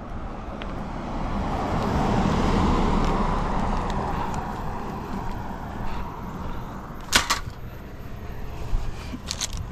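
A car driving past on the street, its tyre and engine noise swelling and then fading over a few seconds, followed by a few sharp clicks or knocks near the end.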